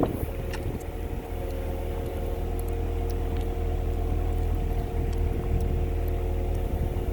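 Komatsu PC120-6 excavator's diesel engine and hydraulics running steadily: a low hum with a steady whine above it.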